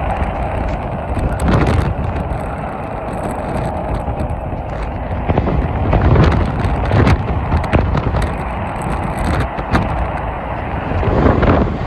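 Heavy multi-lane freeway traffic: a steady rush of tyres and engines, swelling as trucks and cars pass, loudest about six seconds in and again near the end.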